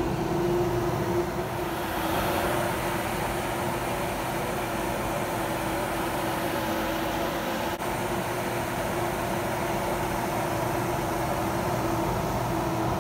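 Kitchen range hood exhaust fan running steadily, a constant hum over a whoosh of air moving through its foil-taped metal duct.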